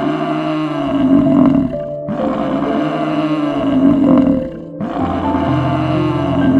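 A big cat roaring in three long, rough calls, over steady background music.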